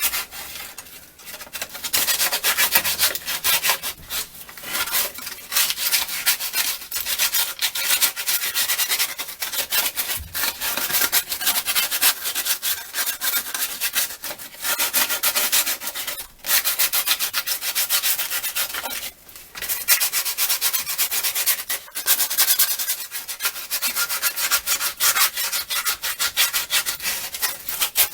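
Sandpaper scrubbed back and forth over rusty metal on a Mercruiser engine's circulator hose connector, removing surface rust in quick, steady strokes with a few brief pauses.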